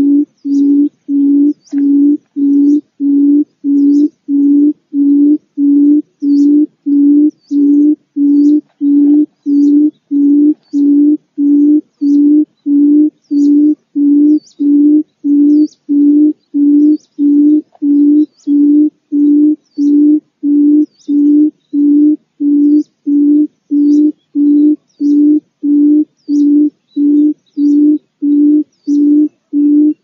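Barred buttonquail, the female's low booming hoot repeated steadily and evenly, about three notes every two seconds: a lure call used to trap buttonquails.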